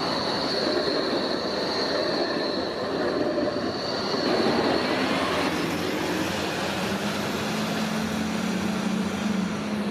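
A BVG Flexity tram passes close by on street track with steady rolling noise and a high steady tone. Later a tram approaches with a low steady hum.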